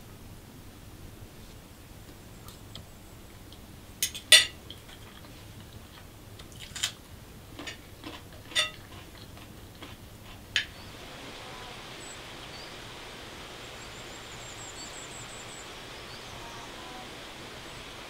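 A fork and spoon clinking against china plates, a handful of sharp separate clinks, the loudest about four seconds in. After about ten seconds this gives way to a steady outdoor hiss with a few faint bird chirps, one a short rapid trill.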